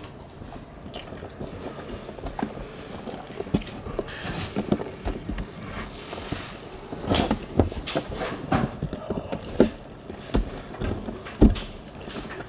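Close-up eating sounds from two people eating rice and side dishes by hand: chewing and lip smacks with irregular clicks and small taps, a cluster of louder smacks about seven to nine seconds in.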